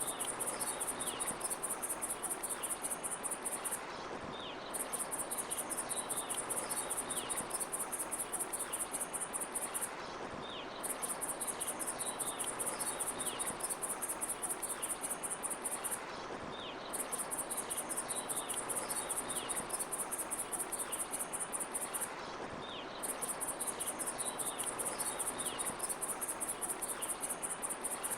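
Crickets chirping in rapid high trains about five seconds long, each broken by a short pause, repeating evenly over a steady background hiss with faint, short, falling chirps.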